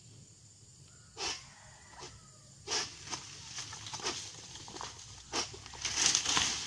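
Long-pole harvesting sickle cutting at the crown of an oil palm: a series of sharp cracking strokes on the tough frond and bunch stalks. Near the end they become a dense rustling crackle of palm fronds.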